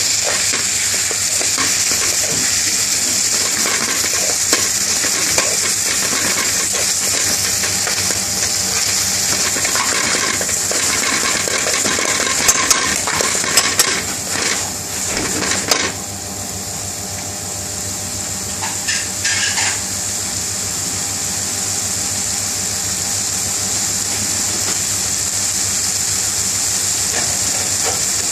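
Curry sauce sizzling in a metal pan with a steady hiss while a metal spoon stirs through it. Between about 12 and 16 seconds in, the spoon clinks and scrapes sharply against the pan several times.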